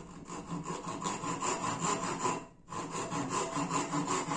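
Hand saw cutting a block of wild plum wood in quick back-and-forth strokes, about four a second, with a brief pause a little past halfway.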